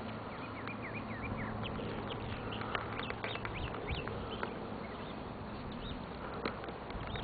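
Small birds chirping: a quick run of short, high calls, thickest in the first half, over a steady rushing background.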